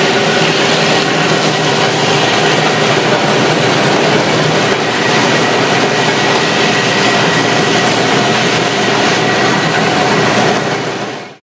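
Ride-on floor tile stripper running as it lifts floor tiles: a loud, even noise with a steady hum, cutting off suddenly near the end.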